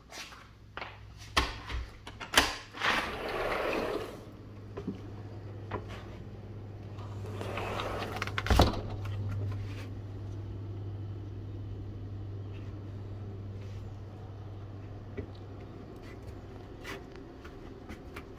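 A sliding glass door rumbling open along its track after a few clicks and knocks, then sliding shut and closing with a sharp knock about eight and a half seconds in. A steady low hum runs underneath.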